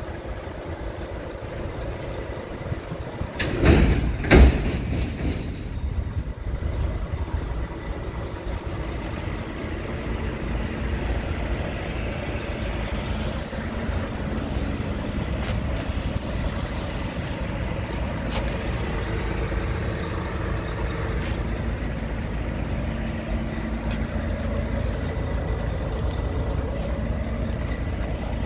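Scania P truck's diesel engine idling steadily, with two loud bursts of noise about four seconds in.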